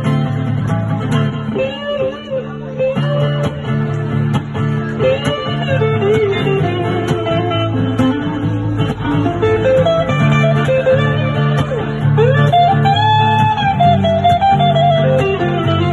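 Live guitar duet: an electric guitar plays a blues-style lead with bent notes that slide up and down in pitch, over an acoustic guitar's sustained chords.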